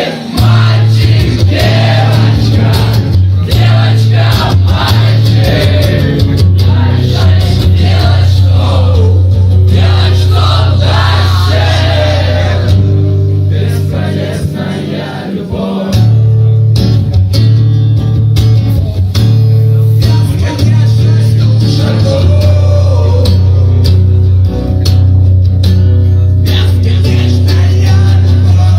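Live acoustic rock song: a male voice singing over guitar, with a loud, steady bass band underneath that drops out for a few seconds about halfway through.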